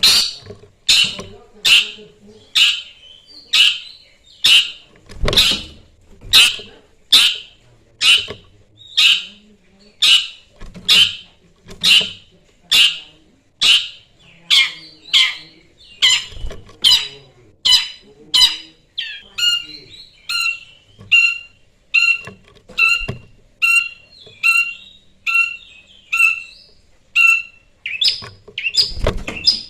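Long-tailed shrike (cendet) calling in a steady series of loud, rasping calls about one a second. About two-thirds of the way through it switches to short, clear whistled notes at the same steady pace, then goes back to the rasping calls near the end.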